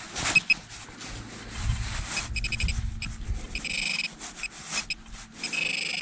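Handheld metal-detecting pinpointer sounding a metal target in the loosened soil: short beeps at first, then a fast pulsing buzz and held tones as the probe nears the find. Under it, a trowel scrapes and knocks in the earth of the hole.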